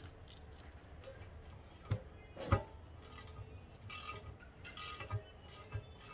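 Clinks and knocks of metal transmission parts being handled: two sharp knocks about two seconds in, the second the louder, then a run of irregular clinking and scraping.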